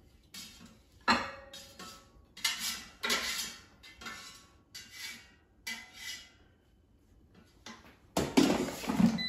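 A spatula scraping and knocking against an air fryer basket as cooked artichoke hearts are tipped out onto a plate, in a string of separate scrapes and taps. A louder clatter comes near the end as the basket is brought down.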